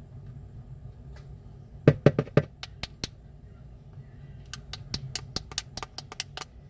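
Sharp clicks and taps of small repair tools and phone parts being handled during an iPhone 6S battery replacement. There is a cluster of four loud clicks about two seconds in, then a quicker run of about a dozen lighter ones in the second half, over a steady low hum.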